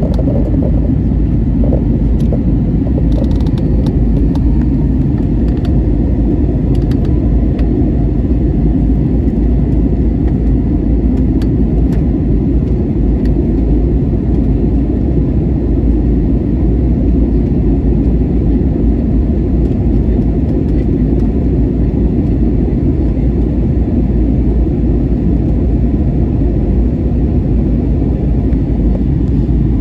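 Steady, deep rumble of an Airbus A320-family jet airliner's engines and rushing air, heard inside the passenger cabin during the climb after take-off.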